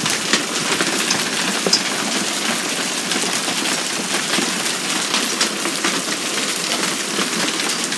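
Steady rain with small hail falling, a dense hiss dotted with many small ticks as the stones strike a wooden deck.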